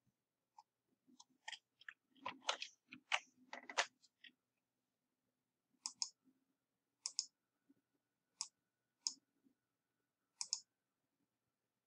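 Clicks from a computer mouse and keyboard: a quick run of clicks in the first few seconds, then single clicks about once a second, some in close pairs.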